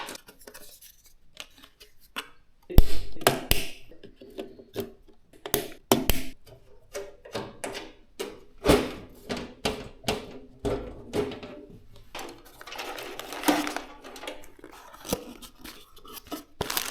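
PC components and packaging being handled during a gaming PC build: a string of irregular clicks, taps and knocks, the loudest a heavier knock about three seconds in.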